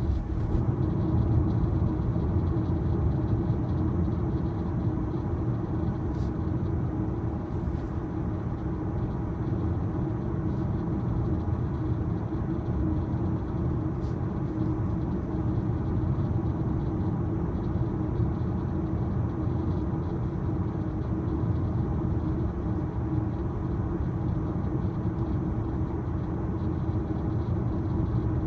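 Steady low road and tyre noise inside the cabin of a 2023 Tesla Model Y electric car on the move.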